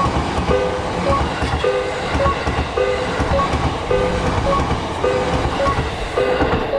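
Japanese level-crossing alarm ringing steadily in a repeating two-tone 'kan-kan', just under twice a second, while a train runs through with a low rumble and wheel clatter.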